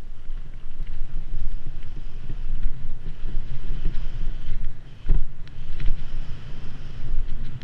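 Wind buffeting a mountain bike's action camera microphone over the rumble of the tyres on a dirt singletrack, with scattered light rattles and a sharp knock about five seconds in.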